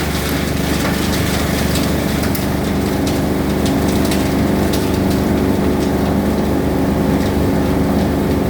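Cocopeat and coco fiber machine running steadily with a low hum, with irregular crackling and snapping as coconut husk is crushed and shredded.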